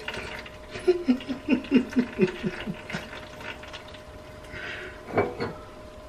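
Wet paper filter full of coffee grounds handled over a pot: a quick run of about ten short squeaky squelches, then a single knock about five seconds in.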